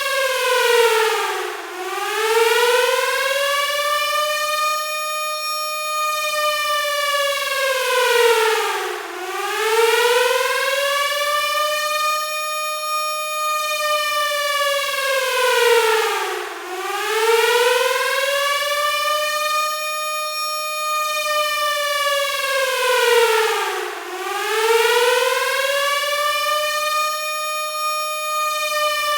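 Air-raid (civil defence) siren wailing: its pitch sweeps slowly up, holds, and falls back, with the cycle repeating about every seven and a half seconds.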